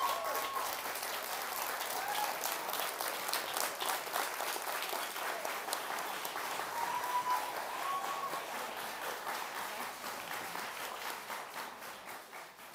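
Audience applauding, with a few cheers rising above the clapping. The applause tapers off near the end.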